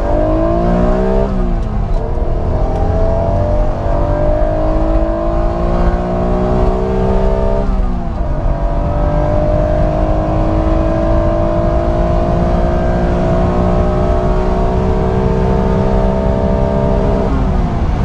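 Honda NSX's 3.0 L VTEC V6 at full throttle, heard from inside the cabin, its pitch climbing steadily as the car accelerates hard through the gears. Two upshifts drop the pitch suddenly, about a second in and about eight seconds in, and the note breaks again near the end.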